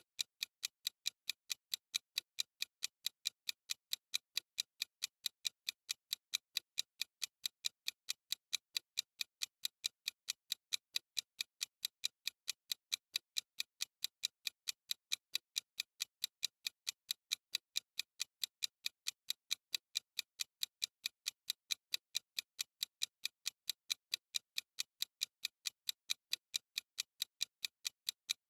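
Clock-ticking sound effect of a countdown timer: rapid, sharp ticks at a perfectly even pace.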